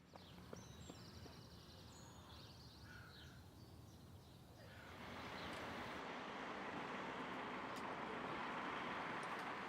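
Faint outdoor ambience with a few short, high bird calls. About five seconds in, a steady rushing noise swells up and holds.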